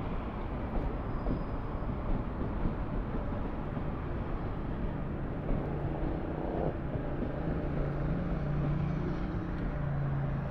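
Electric passenger train passing below and running away down the line, with a steady rumble of wheels on the rails. A low droning hum comes in about halfway through and grows toward the end.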